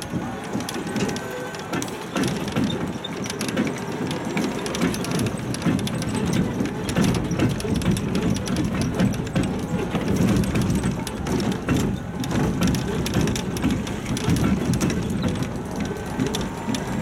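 Ride noise from a rubber-tyred tourist road train: the tyres rumble on a concrete deck and the carriage rattles with a dense, steady stream of clicks and clatter.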